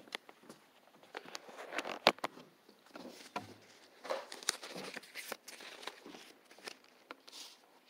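Scattered irregular clicks, knocks and rustles, like footsteps and microphone handling noise, with the loudest knock about two seconds in.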